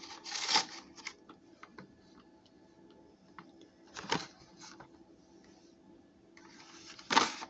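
Plastic blister packaging of a toy airplane crinkling and clicking as it is handled, with a sharp click about four seconds in and a louder rustle near the end.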